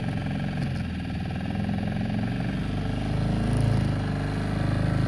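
Small petrol engine of a shikara boat running steadily as the boat moves across open water. It gets a little louder about three and a half seconds in and again near the end.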